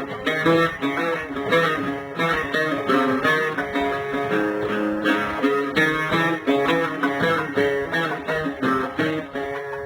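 Instrumental interlude of Algerian chaabi music: a fast run of plucked-string melody, with the ensemble playing together between sung verses.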